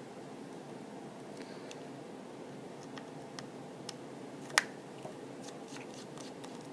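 Scattered small, sharp clicks and taps over a steady faint hiss, the loudest about four and a half seconds in, with a quick cluster near the end: a precision screwdriver and tiny screws being handled on an iPhone 4 during disassembly.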